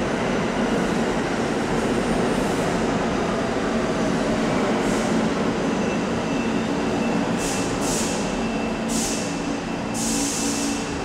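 New York City subway train pulling into a station and braking to a stop: a steady rumble of wheels on rails, then a thin high brake squeal from about halfway through, and several short hissing bursts near the end.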